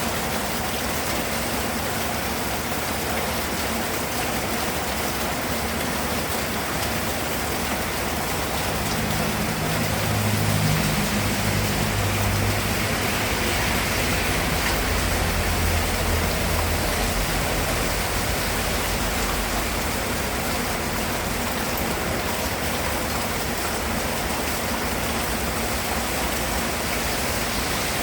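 Steady rain falling, an even hiss of drops. A low rumble swells up about a third of the way in and fades out again before the last third.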